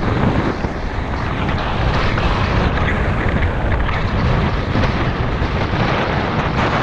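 Loud, steady wind rush on the microphone of a mountain bike at speed, mixed with low rumble from the tyres rolling over gravel and then asphalt.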